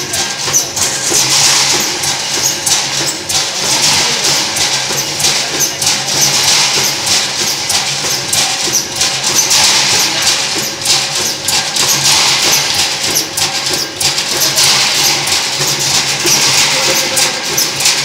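Cable-tray cut-to-length line running: dense metallic clatter and jingling as the punched steel strip feeds out across the runout table, over a steady machine drone.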